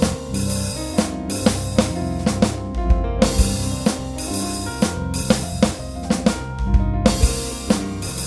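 Instrumental music led by a drum kit, with kick, snare and cymbal strikes in a steady beat over a bass line and sustained pitched notes.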